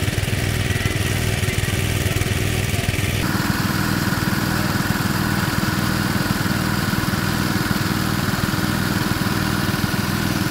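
Small gasoline-engine water pumps running steadily at a constant speed, with water gushing from their discharge pipes. The sound changes abruptly about three seconds in.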